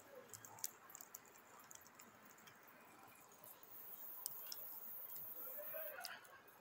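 Wood fire crackling faintly in a fire pit, with scattered small pops. A high steady hiss comes in for about two seconds in the second half.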